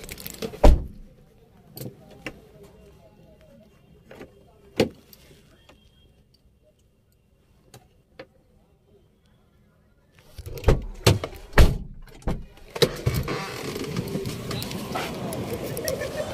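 Handling noise on a phone's microphone: scattered knocks and rubbing, with a sharp knock just under a second in. Near silence in the middle while the phone is covered, then a burst of knocks and clatter as it is picked up again, followed by steady background noise.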